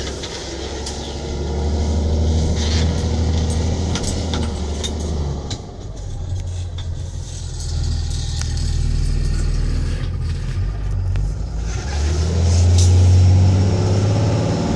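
Diesel engine of a Peterbilt 337 medium-duty truck, heard from inside the cab, running at low revs as the truck pulls away. The drone steps in pitch about five seconds in, then rises and grows louder from about twelve seconds in as the truck accelerates. A few sharp clicks are heard over it.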